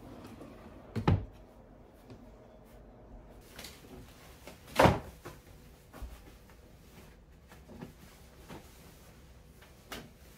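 A wooden dresser drawer pushed shut with a double knock about a second in, then a louder single knock a few seconds later, followed by a few faint handling knocks.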